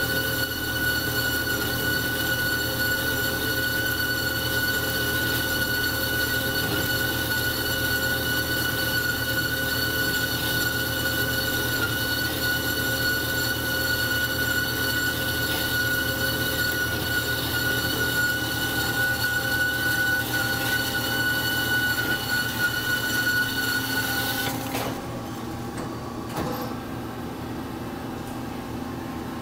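Marvel MV460 vertical band saw cutting rectangular steel tubing under coolant, a steady high-pitched ringing whine over the machine's running hum. About 25 seconds in the whine cuts off suddenly, leaving a lower hum and a couple of clicks.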